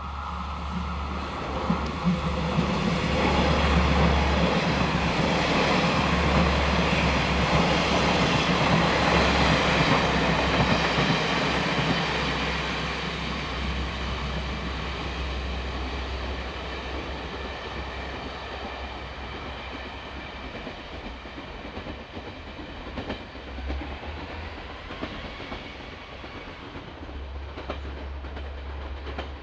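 Seven-car train of KiHa 40-series diesel railcars running through a station without stopping: engines and wheels on the rails, loudest about four to twelve seconds in as the cars go by, then slowly fading as the train moves away.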